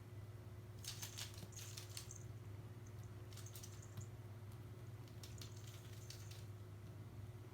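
A kitten playing, making light scratching and clicking sounds in four short bursts, over a steady low hum.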